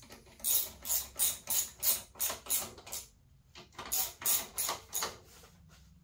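Hand ratchet wrench clicking in quick repeated strokes, about eight at roughly three a second, a short pause, then four more. It is tightening the rear-axle chain adjuster bolts on a kids' electric ATV once the chain tension has been set.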